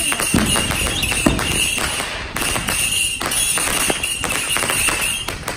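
Consumer fireworks going off at street level: a dense run of crackling and popping with a few sharper bangs, over a steady high whistle that breaks off briefly about two seconds in.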